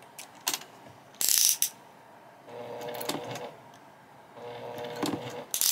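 Electric sewing machine stitching slowly across a bag panel with a cork strap, in two short runs of about a second each, its motor humming steadily. There are a few sharp clicks and a brief rustle between the runs.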